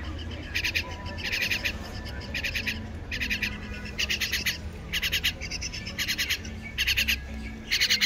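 A baby myna begging for food with short, high, rasping calls, about one or two a second: the chick is hungry and calling to be fed.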